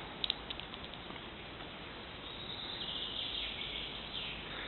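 Outdoor forest ambience: a steady hiss with a few light clicks near the start, and a thin high-pitched buzz or chirr from about halfway through.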